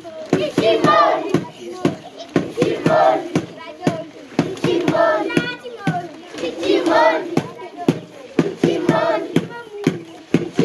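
A group of children singing together in short phrases that swell about every two seconds, over steady rhythmic hand clapping.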